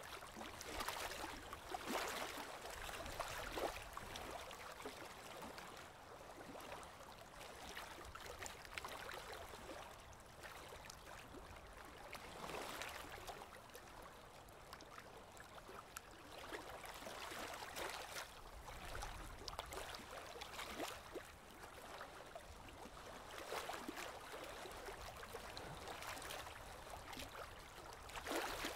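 Water in a goldfish aquarium gurgling and trickling faintly, swelling and fading every few seconds.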